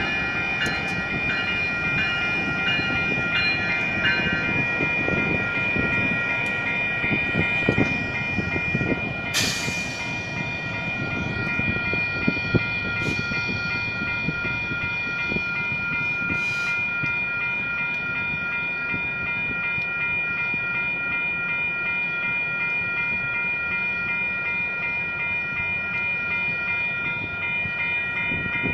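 WCH Type 1 electronic railroad crossing bell ringing steadily with its repeating electronic ding, while two Union Pacific locomotives rumble and clack across the crossing and draw away in the first half. Two brief hisses come about nine and sixteen seconds in.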